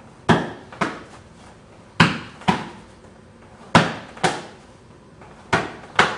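Punches landing on a defender's raised, covering forearms: four pairs of sharp smacks, the two hits of each pair about half a second apart, with a short echo after each.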